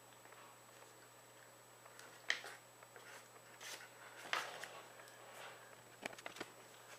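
Paper rustling and crinkling as it is folded by hand, in a few short scattered rustles, with a quick run of sharp ticks about six seconds in as the fold is pressed flat against a cutting mat.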